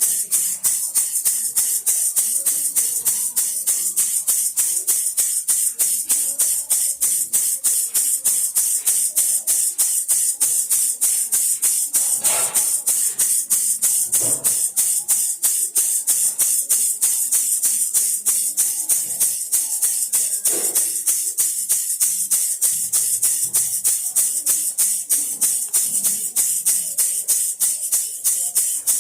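Baby rattle shaken steadily in a rapid, even rhythm, a bright rattle of beads on every stroke.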